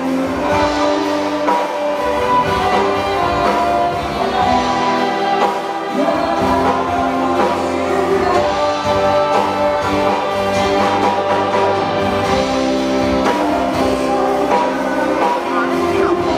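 A song sung live into a microphone over instrumental accompaniment, played through the hall's sound system.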